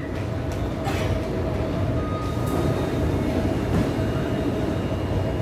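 Taipei Metro C321 electric train at the platform, giving a low rumble that grows louder over the first second and then holds steady, with a constant humming tone over it.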